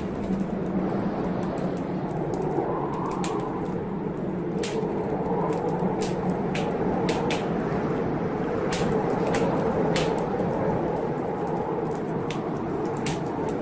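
Wood fire in a fireplace crackling, with irregular sharp pops about one or two a second over a steady low rushing noise.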